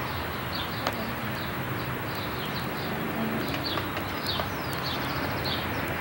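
Small birds chirping over and over in quick short calls, over a steady background hiss and hum. A single click about a second in.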